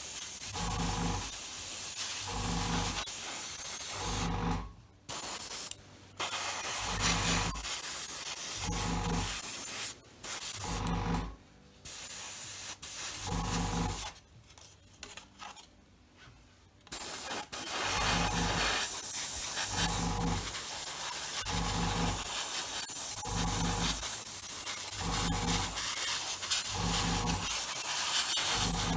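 Premier G35 gravity-feed airbrush spraying gloss black acrylic at about 16–17 PSI: a steady air-and-paint hiss in long bursts, cut off several times as the trigger is released, with a longer pause a little past the middle. A regular low pulse about once a second runs under the hiss.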